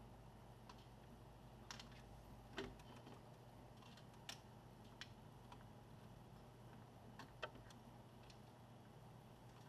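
Near silence broken by a handful of small, sharp clicks and taps at irregular intervals, the loudest about two and a half seconds in and again near seven and a half seconds: small laptop parts being handled while the cooling fan is refitted.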